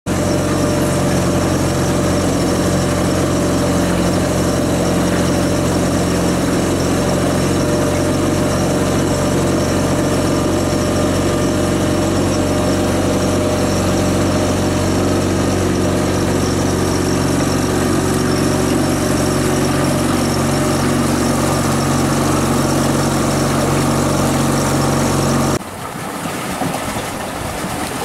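Sailboat's auxiliary engine running steadily while motoring, a constant drone with several fixed low tones. About two and a half seconds before the end it cuts off suddenly, leaving quieter wind and water noise.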